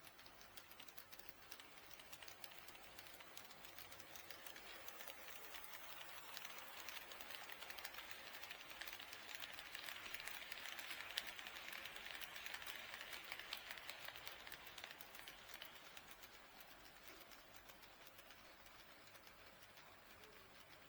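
HO scale model train running on KATO Unitrack: a faint rapid ticking of wheels over the rail joints with a light running whir, growing louder to a peak about halfway through and fading away again as the train passes.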